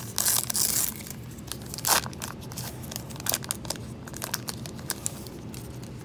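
A baseball card pack's wrapper being torn open, with a loud rip in the first second and another about two seconds in, followed by crinkling and short crackles as the wrapper is handled.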